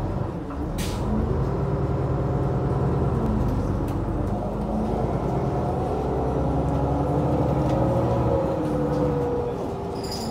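Iveco Urbanway city bus heard from inside the passenger cabin: a steady low engine and drivetrain rumble with whining tones that slowly rise and fall in pitch. There is a sharp click about a second in.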